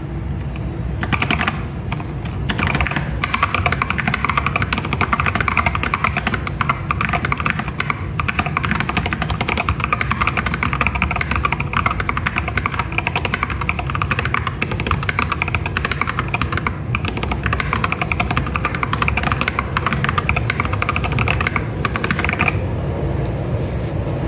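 Fast, continuous typing on a mechanical keyboard fitted with unlubed tactile switches, Akko Jelly Sponge and Fantasy Virus. The typing is sparse for the first couple of seconds, then runs dense until it stops shortly before the end.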